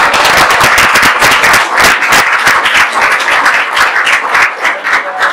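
Audience applauding: dense clapping from many hands that thins out to scattered claps near the end.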